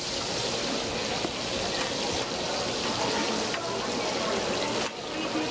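Mung bean pancakes (bindaetteok) frying in a shallow pool of oil on a flat griddle: a dense, steady sizzle that dips briefly near the end.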